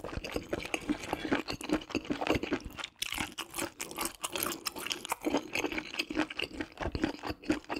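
Close-miked chewing and wet mouth sounds of a person eating spicy stir-fried webfoot octopus with beef intestines, a dense run of quick, irregular smacking clicks.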